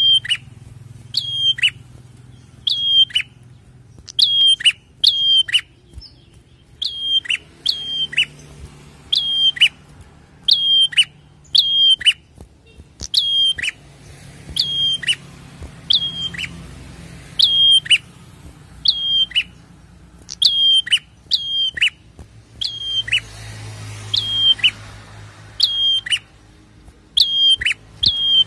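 Caged prenjak (prinia) singing: a sharp call repeated about once a second, often in quick pairs, each a high note that snaps down in pitch.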